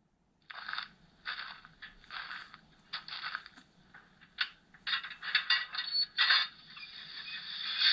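Paragon 3 sound decoder in an N-scale Broadway Limited PRR T1 steam locomotive model starting up through its small speaker: a run of short crackling, clinking bursts, then a steady steam hiss building up near the end.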